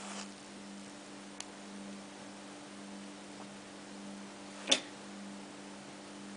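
Steady low electrical hum, with a faint tick about a second and a half in and one short scratchy strike of a match about five seconds in.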